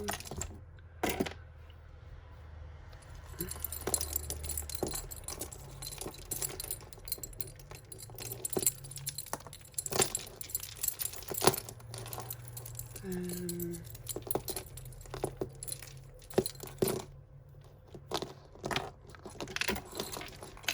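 Costume jewellery chains and beads clinking and jangling in irregular small clicks as tangled necklaces are handled and pulled apart.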